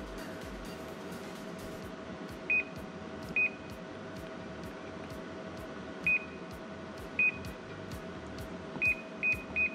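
Konica Minolta C3070 control-panel touchscreen giving short confirmation beeps as keys are pressed to clear its parts counters: seven brief beeps of the same pitch at uneven intervals, three in quick succession near the end. A steady machine hum runs underneath.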